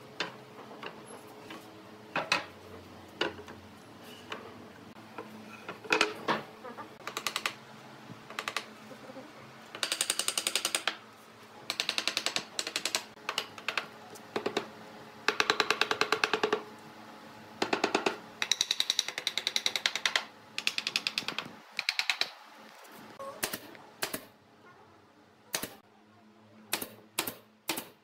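A hammer knocking pine boards into place on a wooden workbench frame: single knocks at first, then runs of rapid taps. Near the end a pneumatic brad nailer fires a quick series of sharp shots.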